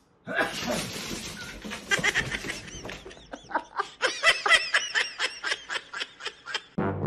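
A person laughing hard in a long run of quick repeated bursts, about four a second, louder and more tuneful in the second half.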